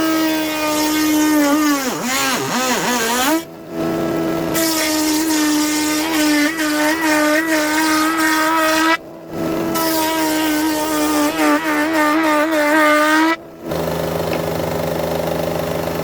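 Spindle moulder running with a steady whine, its pitch sagging and wobbling as the cutter bites into a wooden cabinet-door panel. The sound drops out briefly three times.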